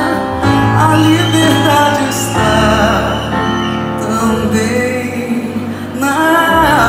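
Live band music with singing: long, wavering sung notes over sustained bass notes that change twice.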